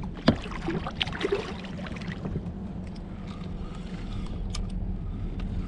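Oar of an inflatable boat being worked by hand: two sharp knocks near the start, then the blade moving through the water for a second or two.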